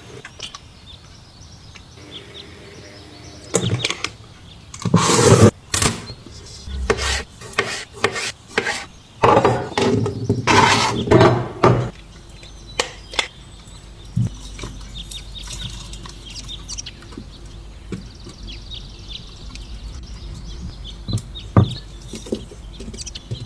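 Hands-on kitchen noises: utensils and dishes knocking, clicking and scraping, in a busy run of loud strokes from about four to twelve seconds in, then a few scattered light ticks over a faint low hum.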